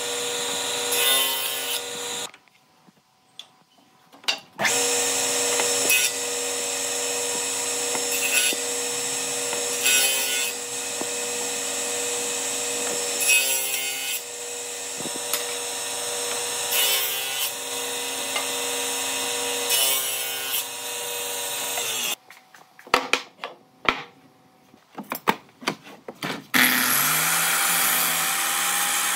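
Electric woodworking power tool running with a steady motor whine. It stops about two seconds in, starts again a couple of seconds later and runs until it cuts off about 22 s in. A few sharp knocks follow, then a different steady whirring starts near the end.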